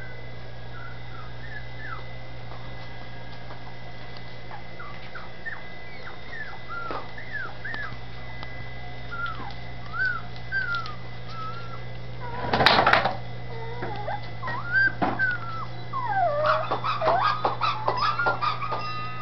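Young dachshund puppies whimpering and squeaking in short high calls that rise and fall, sparse at first and crowding into a flurry of yips near the end. A louder, rougher burst comes about two-thirds of the way through, over a steady low hum.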